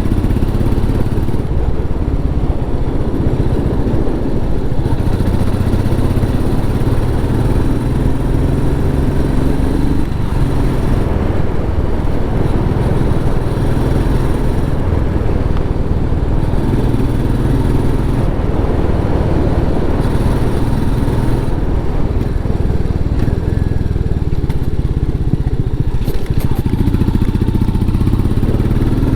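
Royal Enfield Meteor 350's single-cylinder engine through its stock exhaust, running under way. The note climbs as it accelerates and drops back at gear changes, several times over.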